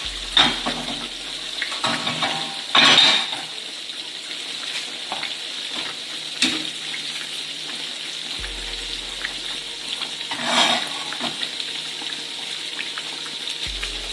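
Chicken frying in hot oil with a steady sizzle, broken by a few short clatters of utensils or pans.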